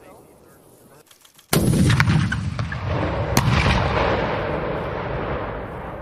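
M136E1 AT4 CS recoilless anti-tank launcher firing: a single sudden, very loud blast about a second and a half in, followed by a long rumbling echo. A second sharp crack about two seconds later marks the round hitting the target tank.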